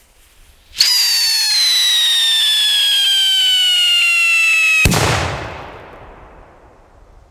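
Thunder Storm 1 whistle firecracker going off: a loud whistle starts about a second in and slides slowly down in pitch for about four seconds while it throws sparks. It ends in one sharp bang that echoes away over the next two seconds.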